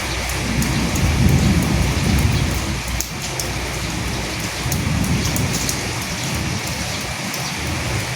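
Steady rain pattering, with a low rumble of thunder that swells about a second in and again more weakly a few seconds later.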